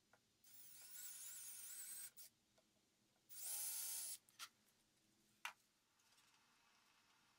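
Handheld power drill with a stepped pocket-hole bit boring into a wooden board, in two short runs of a high motor whine: the first about a second and a half long, the second under a second. A few light knocks fall between the runs.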